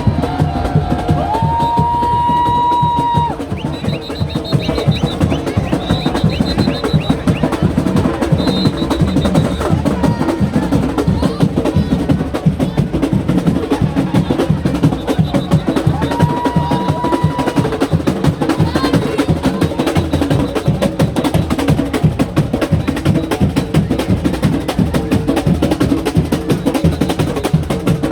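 Percussion band drumming a dense, fast rhythm on drums and wood-block-like instruments. A high held note sounds about a second in and again a little past halfway, with short warbling high notes in between.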